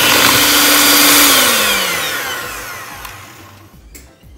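Electric hand mixer running at speed with its beaters in cake batter, then switched off about a second and a half in, its whine falling in pitch and fading as the motor winds down.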